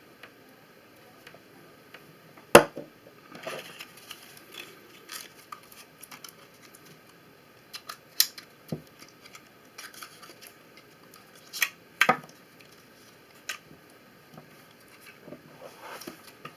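Scattered clicks and knocks of small plastic USB power adapter plugs and their packaging being handled, with one sharp knock about two and a half seconds in, the loudest, and a few more spread through.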